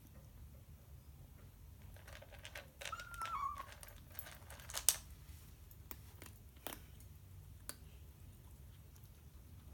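Bengal cat eating: scattered crisp clicks and crunches of food in its mouth, the sharpest about five seconds in. A short, wavering squeak falls in pitch about three seconds in.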